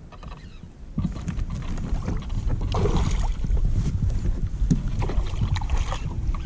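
Water splashing and sloshing beside a plastic fishing kayak as a hooked smallmouth bass thrashes at the surface. A low rumble of wind on the microphone starts about a second in.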